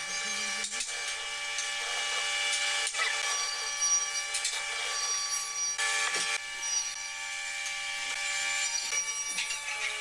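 Electric power tool running steadily while cutting or working wood, with a steady whine of several tones over the noise of the cut. The sound dips briefly about a second in and again around six seconds in.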